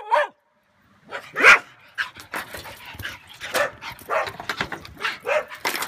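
Dog vocalising: a wavering whine cuts off at the start, then after a short gap comes one loud bark about a second and a half in. Scattered shorter barks and yips follow, with sharp clicks as it moves about on its chain.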